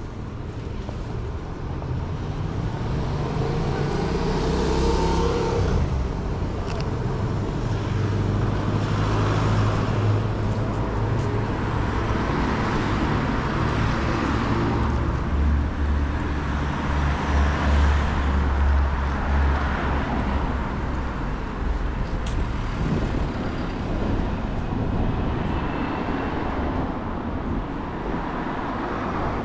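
Town street traffic: several cars pass one after another, their low engine and tyre rumble swelling and fading over a steady background of street noise.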